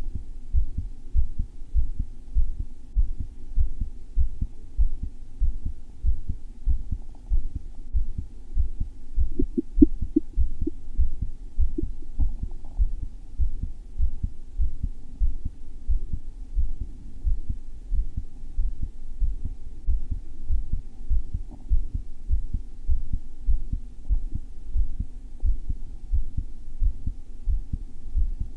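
A man's heartbeat picked up by a microphone pressed to his chest: fast, thumpy beats at about 100 a minute, in sinus rhythm. A few brief clicks about ten seconds in.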